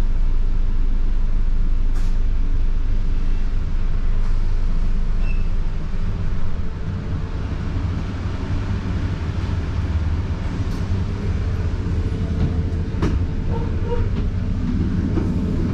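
London bus on the move, heard from on board: a steady low rumble of engine and road, with a couple of sharp clicks or rattles.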